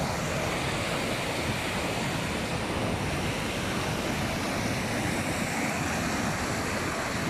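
Swollen, muddy mountain river in flood, rushing steadily over rocks and through rapids.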